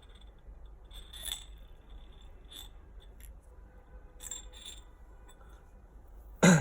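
Light clicks and scrapes of small metal lightsaber parts being handled, with one loud sharp knock near the end.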